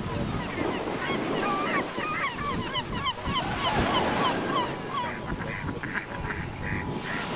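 Birds calling in a quick run of short chirping notes, loudest through the middle, over a steady wash of wind and lapping water.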